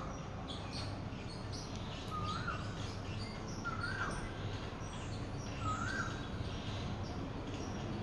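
Barred eagle-owl giving three short squeaky calls, each rising then falling in pitch, a second and a half to two seconds apart: its call for food at feeding time.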